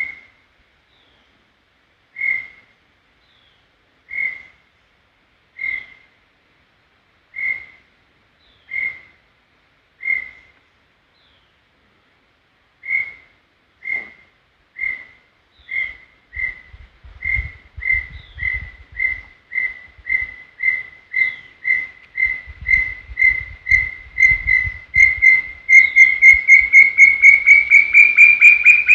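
Brown tinamou singing: clear single whistled notes about every one and a half to two seconds, then from about halfway the notes come faster and faster, growing louder and rising in pitch toward the end.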